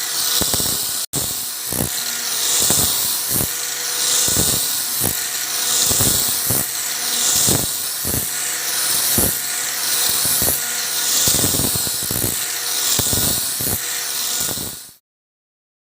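A small electric power tool working wood, like a sander; its gritty hiss swells and falls in a steady rhythm a little faster than once a second. There is a split-second dropout about a second in, and the sound cuts off abruptly near the end.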